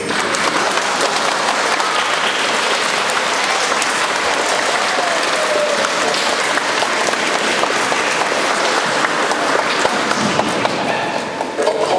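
Audience applause: many people clapping steadily. The applause dies down near the end as music comes back in.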